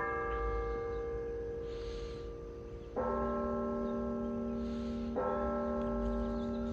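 Church tower bells: a higher bell is struck at the start and rings on, then a deeper bell strikes about three seconds in and again about two seconds later, each stroke ringing on under the next. The deeper bell's even strokes are the start of the 11 o'clock hour strike.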